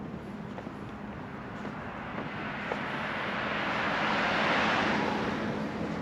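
A car passing on the adjacent road: its tyre and engine noise swells over a couple of seconds, peaks about four and a half seconds in, then fades. A faint steady low hum runs underneath.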